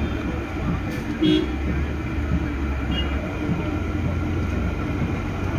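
Spinach-moong pakodas deep-frying in a large iron kadhai of hot oil: a steady sizzle as batter is dropped in by hand, over a low steady traffic rumble. A short vehicle horn toot sounds about a second in and is the loudest thing.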